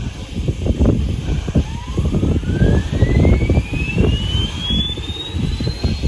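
A high whine rising smoothly in pitch for about four seconds, as a machine spins up, then holding steady, over a heavy, uneven low rumble.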